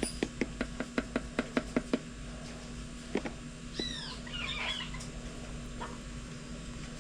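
A quick run of about ten sharp taps, roughly five a second, then a single tap or two. A bird follows with a couple of short arched calls that fall in pitch, and a brief chattering burst after them.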